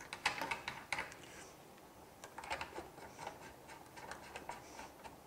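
Light metallic clicks and ticks in several short clusters as the metal end fitting of a high-pressure flex tube is handled and screwed by hand onto a port of a pressure calibration case.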